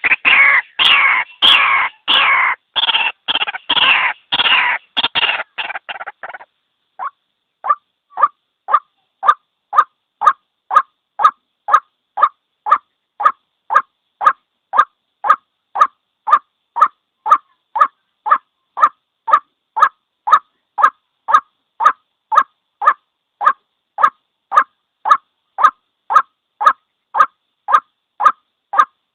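White-breasted waterhen calling: a dense run of rapid, overlapping calls for about six seconds, then, after a brief pause, a steady series of short single notes, about two a second.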